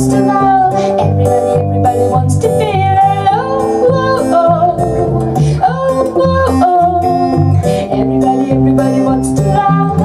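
Live song: a woman singing to her own acoustic guitar, with an electric bass playing underneath.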